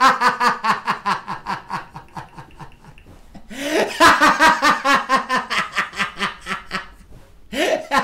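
A man laughing hard in rapid, pulsing peals: one long bout that tails off, a second starting about three and a half seconds in, and a shorter one near the end.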